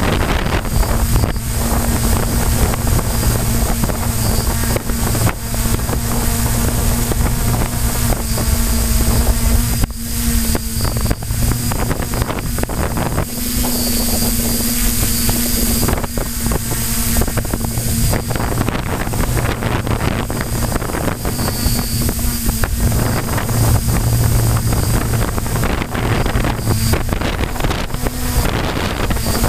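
Brushless motors and propellers of a DJI F550 Flame Wheel hexacopter humming steadily, heard through the camera microphone on the drone itself, with wind buffeting the microphone in short gusts.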